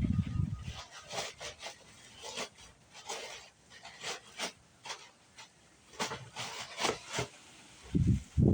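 Irregular strokes of rubbing on a wooden tabletop, each a short scratchy swipe, as it is sanded or worked over during refinishing. Low rumbling bursts come at the start and again near the end.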